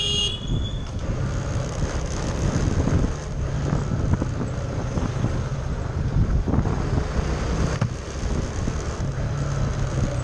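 A motorbike's brakes squeal in a high tone for about the first second. After that the bike's engine runs steadily under road noise.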